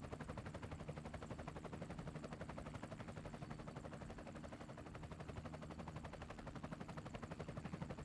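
Faint radio receiver noise between air traffic control transmissions: a rapid, even crackle over a steady low hum.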